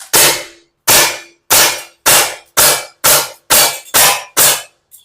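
Sig P320 X-Carry CO2 BB pistol firing nine shots in quick succession, the blowback slide cycling with each one, at first under a second apart and then about two a second. A faint click follows near the end.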